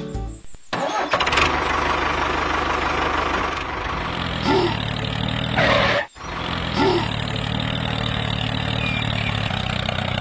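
Tractor engine running steadily. It cuts out briefly twice, about half a second in and about six seconds in, then picks up again.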